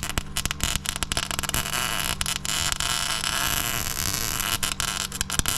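Stick-welding arc with 6013 rod, crackling and sputtering steadily in dense rapid pops. The steady hum of the old Miller generator welder's Onan engine runs underneath.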